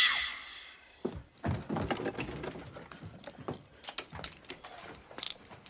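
A loud shrill screech fading away at the start, then a run of metallic clicks and clacks as a gun taken from a gun cabinet is handled and loaded.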